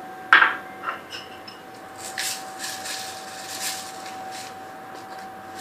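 Kitchen handling sounds while pancakes are being garnished on a plate: a single knock about a third of a second in, then faint scraping and rubbing strokes, over a steady faint hum.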